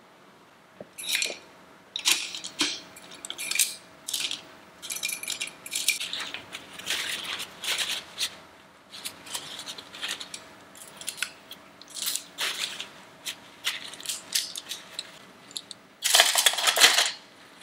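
Paintbrushes being handled in their jars and holders, the wooden handles clattering and rattling against the glass and against each other in many short bursts. The loudest clatter comes near the end, as a handful of brushes is pushed into a brush holder.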